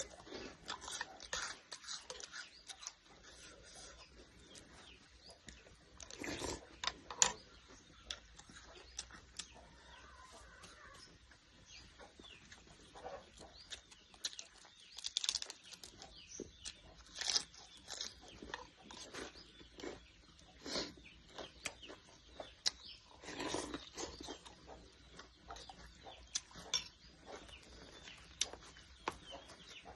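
Chickens clucking and small birds chirping in short, scattered calls, with a few louder calls now and then.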